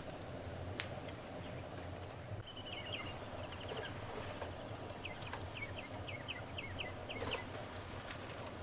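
A small bird calling in quick series of short, high notes: a brief run about three seconds in, then a run of about eight notes, each with a downward flick, over a steady low background hum.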